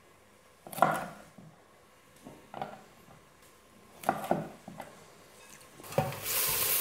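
Chef's knife cutting through broccoli and striking a wooden cutting board, a few separate cuts a second or two apart. Near the end, onions sizzling and being stirred in a pot.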